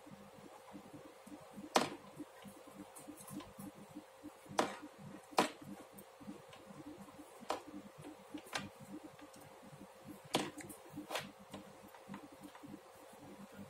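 Knitting needles clicking against each other as stitches are worked: sharp, irregular clicks every second or so, over a faint steady hum.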